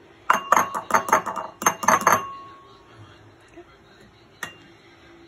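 A quick run of about ten clinks as a plastic measuring cup and utensil knock against a ceramic bowl, leaving a brief ringing tone, then a single clink about four seconds in.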